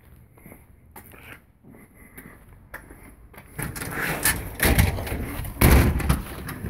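A glass storm door and then the front door being opened by hand: faint footsteps, then about three and a half seconds in a rattle of handle and frame with two solid knocks about a second apart.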